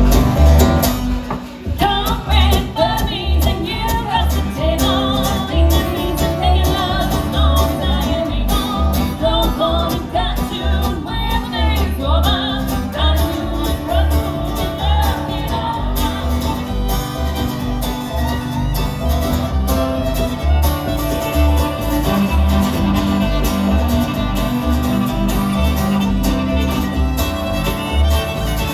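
Guitar, fiddle and bass playing a country/bluegrass tune together, with the bass keeping a steady, regular pulse under the fiddle and guitar.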